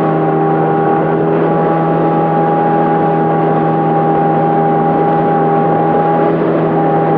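Motorboat engine running steadily, loud and close, at one unchanging pitch over a rushing noise.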